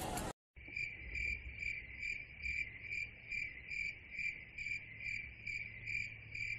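Crickets chirping in a steady high trill that pulses evenly, about two to three times a second.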